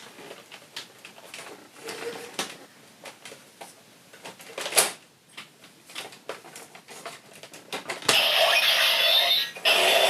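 Hard plastic parts of a DX Tridoron toy car clicking and knocking as they are handled and snapped together. About eight seconds in, a loud electronic sound effect from the toy's speaker takes over.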